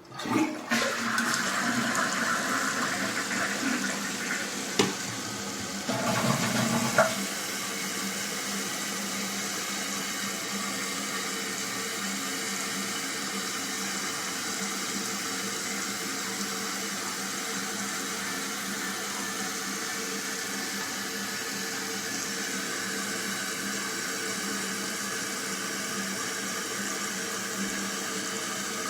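2001 Eljer Savoy toilet flushing: a sudden loud rush of water for about seven seconds, with a couple of sharp clicks, then the tank refilling with a steady hiss.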